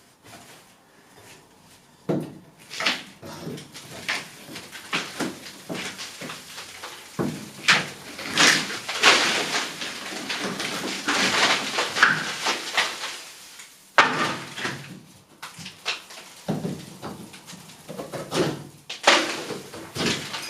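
Irregular knocks, scrapes and creaks of wooden fixings being prised off a lath-and-plaster wall. The work starts about two seconds in, pauses briefly about two-thirds of the way through, then starts again.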